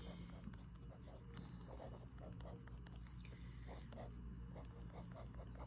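Faint scratching of handwriting on lined notebook paper, in short repeated strokes, over a low steady hum.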